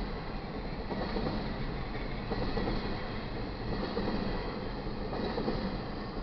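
A train rolling past on the rails: a steady rumble and clatter of steel wheels on track, with a faint high ringing from the wheels.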